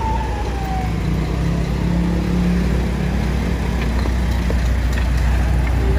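Road traffic: a deep, steady engine rumble from passing vehicles, with a falling whine that fades out within the first second. A few faint knocks of wooden boards being stacked in a car trunk come in the second half.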